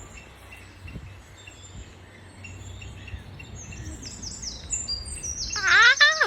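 Parrot chirping: faint repeated chirps, then from about four seconds in a quick run of high descending chirps, ending in a loud, harsh call a little before the end.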